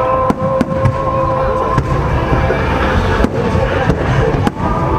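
Fireworks going off: about five sharp bangs a second or so apart, over a continuous rumbling din.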